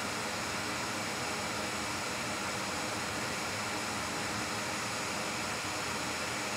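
Steady fan-like hiss, even and unchanging throughout.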